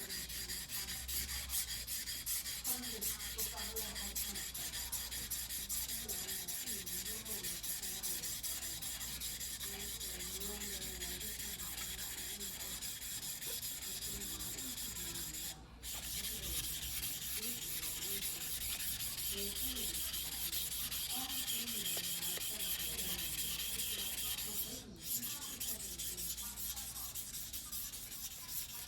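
Steel blade of a Choyo white #2 steel yanagiba knife being stroked back and forth by hand on a wet whetstone: a steady, rhythmic abrasive scraping, broken by two brief pauses, about 16 and 25 seconds in.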